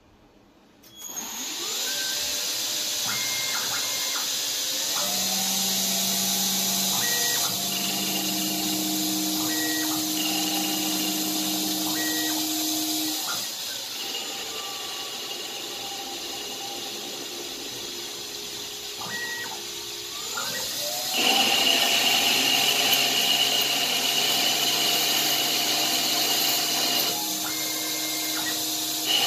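Grizzly G0602 CNC-converted lathe spinning up about a second in, then running and cutting metal bar stock for a pulley, with a steady machine whine and short steady hums. The whine rises as the spindle speeds up, drops near the middle and rises again, louder, about two thirds of the way through.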